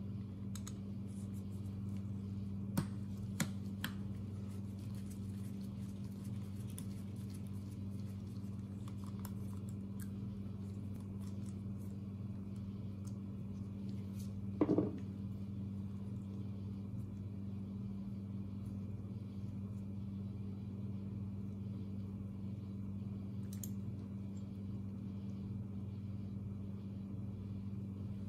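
Faint clicks and taps of small tools and parts as a chainsaw carburetor is taken apart by hand on a wooden bench, with one louder short knock about halfway through. A steady low hum runs underneath.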